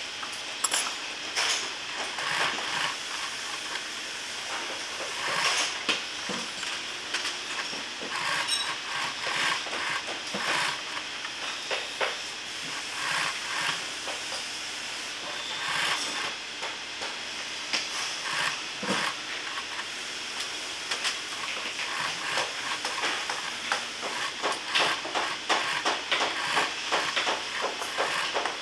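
Industrial post-bed sewing machine stitching a leather boot upper: runs of rapid needle clicking that stop and start as the leather is turned, over a steady hiss.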